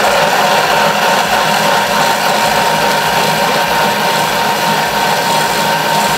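Thermomix food processor running, its blade chopping coarsely cut vegetables with white wine: a steady motor whir with a thin high tone running through it.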